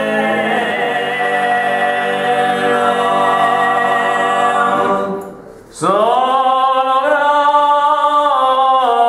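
Men's voices singing a cappella in close harmony, Bosa's traditional canto a traggiu. A held chord fades out about five seconds in, and after a brief pause the voices slide up together into a new held chord.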